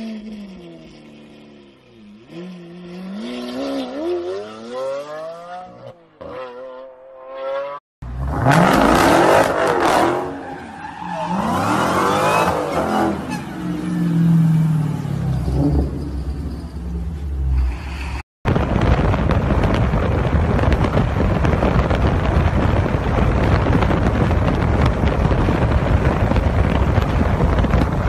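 Car engines revving, with rising and falling pitch, then tyres squealing and engine noise across a few abrupt cuts. In the last third the sound is a steady loud rush of noise.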